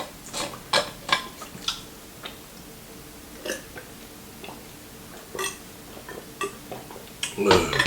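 Crisp fried chicken crackling and crunching in the mouth as it is chewed, a few sharp crackles a second at first and then sparser. Near the end comes a short, louder throaty sound.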